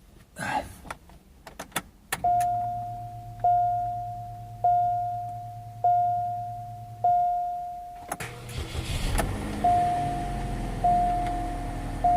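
A few clicks, then a car's warning chime dinging as a single ringing tone about once every 1.2 seconds. About eight seconds in, the 2005 Chevrolet Cobalt's 2.2-litre four-cylinder engine starts and runs under the chime, which keeps dinging. This engine has logged a cylinder 4 misfire code.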